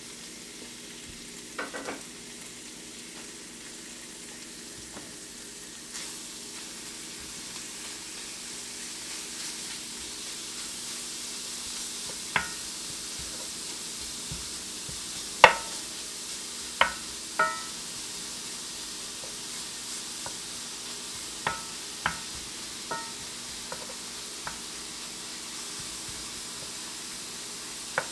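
Thin-sliced marinated beef frying in butter in a cast iron skillet, a steady sizzle that builds over the first ten seconds or so. Now and then a metal utensil taps against the pan with a short ring.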